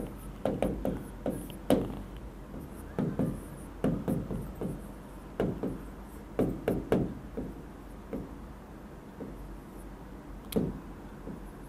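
Knocks and taps of handwriting on an interactive smart board's screen, coming in quick clusters with the strokes, then thinning out, with one sharper knock near the end.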